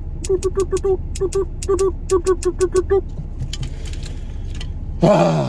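Wooden tongs clacked open and shut in quick succession, several sharp clicks a second for about three seconds, along with a run of short pitched notes in rhythmic groups. A car engine idles underneath.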